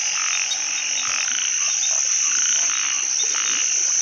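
A chorus of narrow-mouthed frogs (อึ่ง) calling after rain, overlapping croaks repeated about twice a second, over a steady high insect drone.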